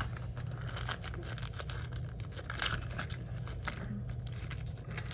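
Small toy packaging being handled and opened by hand: light crinkling and rustling with scattered small clicks, a couple of them sharper in the middle.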